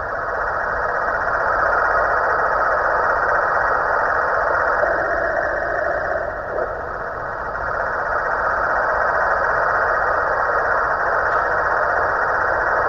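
Snoring from a Halloween pumpkin decoration: long, drawn-out snores that swell and ease, with a breath about every six seconds.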